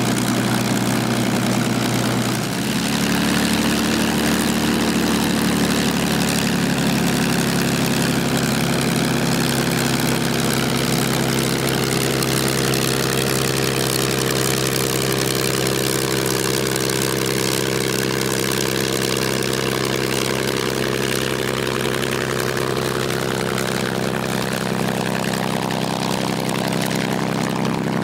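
P-51D Mustang's Packard V-1650-7 Merlin V12 and propeller running steadily at a constant low-power setting, with the engine note shifting to a slightly different pitch about two and a half seconds in.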